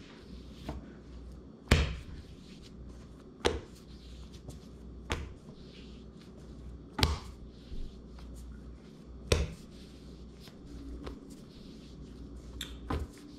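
High-hydration (80%) pizza dough being slapped onto a kitchen counter and folded over, the slap and fold method of building gluten. About six sharp slaps, one every two seconds or so, with a few softer handling knocks between.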